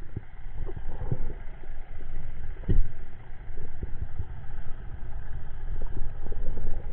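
Muffled underwater rumble with irregular low knocks and thuds, heard through a camera housing on a speargun as a diver swims over a reef.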